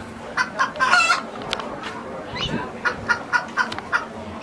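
Bird calls: a run of short, repeated pitched notes in clusters, with one rising call about halfway through.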